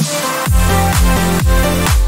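Electronic dance music with a heavy bass kick that comes in about half a second in and then keeps a steady beat.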